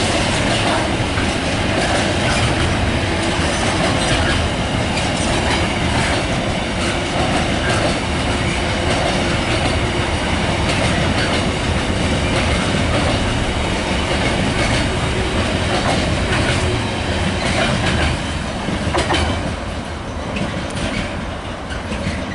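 Container freight train's wagons rolling past steadily, wheels clicking over the rail joints with a faint squeal from the wheels. The noise eases off a little near the end.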